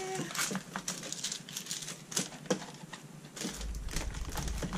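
Plastic packets of papercraft embellishments crinkling and rustling as they are handled and slid into a clear plastic storage box, with many small clicks and taps.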